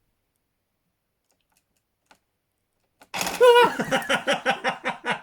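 Near silence for about three seconds, then a sudden loud burst: a brief wavering cry followed by people laughing in quick rhythmic pulses.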